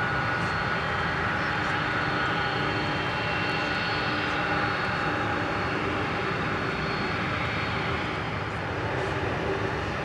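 A FedEx MD-11F trijet freighter's engines running as it arrives: a steady jet rumble with a high whine laid over it.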